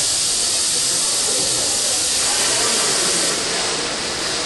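Steam hissing steadily from a steam pumping engine, easing off slightly near the end.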